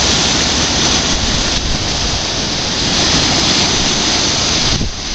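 Large whirlpool swirling water down into the lock's underwater filling intakes: a loud, steady, thunderous rushing of water, easing briefly near the end. The whirlpool is the sign of the lock chamber filling through large pipes beneath the surface.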